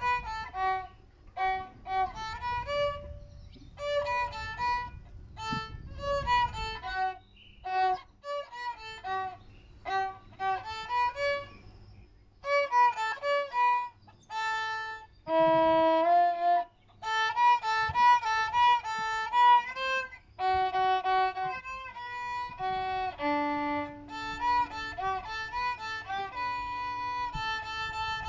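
A child's small violin played solo: a melody of short, separated bowed notes, with a run of longer held notes in the middle.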